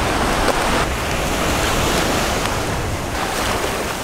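Surf breaking and washing up the beach, with wind rumbling on the microphone. The wash swells about a second in and eases off near three seconds.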